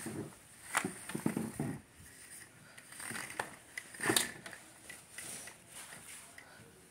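Rustling and handling noise from a handheld phone being moved about, with two sharp clicks, one about a second in and one about four seconds in.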